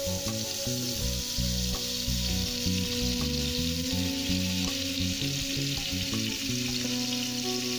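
Masala paste and a chicken piece sizzling in hot oil on a flat iron tawa as the paste is spooned on and spread with a spatula, a steady frying hiss with a few light taps.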